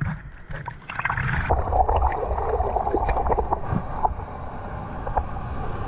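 Seawater sloshing and gurgling right at the microphone of a camera held at the waterline, over the low rumble of breaking surf.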